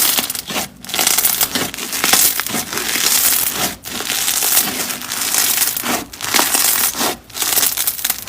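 Slime being squished and worked, a dense crackling crunch broken by several short pauses.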